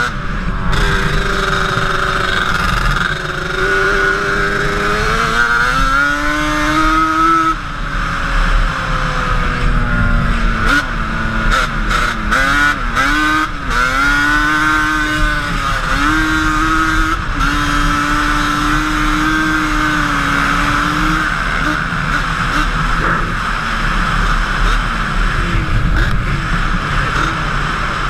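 Sport quad's engine running under way as it is ridden, its pitch climbing over the first several seconds, dropping, rising and falling quickly a few times, then holding fairly steady while cruising, over a constant rush of riding noise.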